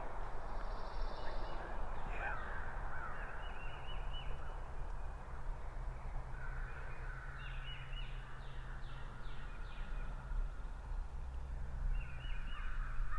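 Crows cawing, with a run of short calls about eight to ten seconds in, and other small birds calling at times.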